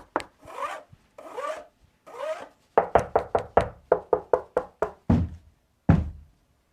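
Percussive music from the test track, played through the soundbar: quick, evenly spaced taps at about five a second, with three scratch-like swishes in the first couple of seconds and a few deeper thumps near the end.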